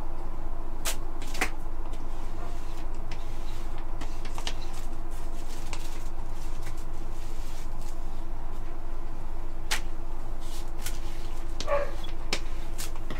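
Scattered light clicks and taps from handling a paint roller, an inked doily and tissue paper on the work surface, over a steady low electrical hum. A brief animal call sounds near the end, one of the household pets.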